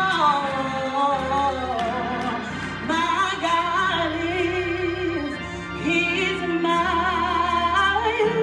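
A woman singing a gospel solo in long held notes with wide vibrato, sliding between pitches, over instrumental accompaniment with sustained low notes.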